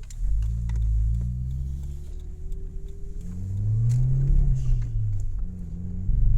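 Audi A3 1.8T's turbocharged four-cylinder engine (AUM) revving under load. The revs climb and drop twice, with scattered sharp clicks, in the car the uploader suspects has a misfire, possibly from an ignition coil.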